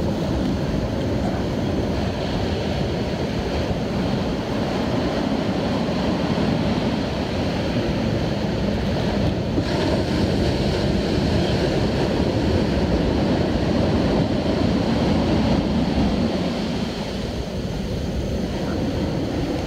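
Steady rush of surf breaking on the beach, swelling and easing slowly, with some wind on the microphone.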